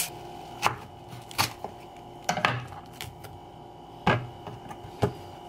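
Kitchen knife cutting a red onion on a wooden cutting board: about seven sharp, separate knocks of the blade against the board, spaced irregularly, over a faint steady hum.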